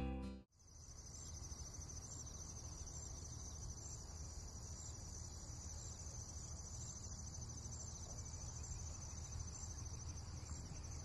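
Crickets chirping steadily in a high, continuous trill over a faint low rumble, after background music fades out about half a second in.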